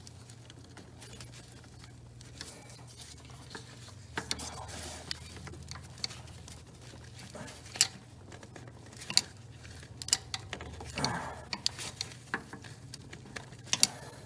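Scattered small clicks, taps and scrapes of hands and metal parts as a rubber power-steering hose and its spring clamps are forced onto a fitting, heard over a low steady hum.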